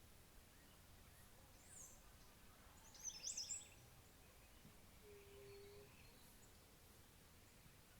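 Faint songbirds chirping over quiet outdoor background noise, the loudest a quick burst of high chirps about three seconds in.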